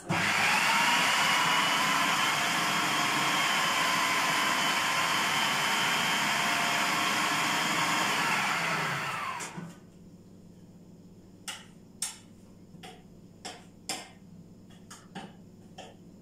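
Electric food processor chopping fava beans with a little added water into ta'meya (falafel) paste: a loud steady motor whine that slides down in pitch as it stops about nine and a half seconds in. After it, scattered light clicks and knocks.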